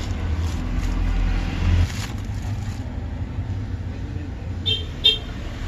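Handling of the cardboard packaging tube as a small brushed DC motor is taken out of it, over a low steady rumble, with two short light clicks about five seconds in.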